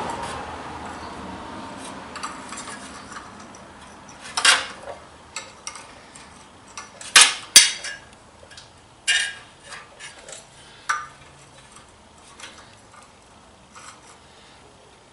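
Metal parts and tools handled and set down on a hard surface: scattered clanks and clinks, the loudest a pair about seven seconds in. A hiss fades away over the first couple of seconds.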